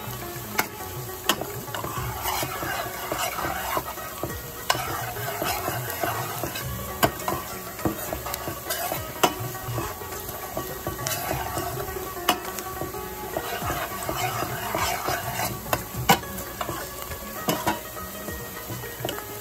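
Sliced onions sizzling in oil in a pan over very low heat as they fry into beresta (crisp fried onions), stirred with a spatula that taps sharply against the pan now and then.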